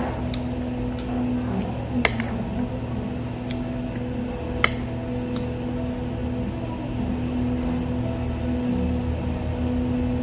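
Steady machine hum with a few sharp clicks of metal chopsticks against a plate, the loudest about two and about four and a half seconds in.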